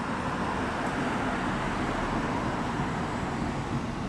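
Road traffic noise on a city street: a steady wash of car tyre and engine noise.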